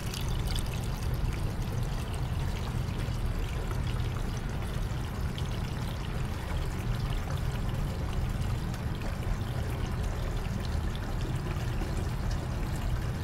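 Water pouring steadily from a lemonade pitcher into a humidifier's water tank, one unbroken pour.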